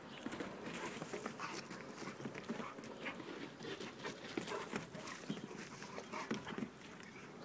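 A Greater Swiss Mountain Dog and a smaller dog play-fighting: scuffling and paws thudding on bare dirt, with dog growls mixed in. The busy, irregular knocking eases off near the end.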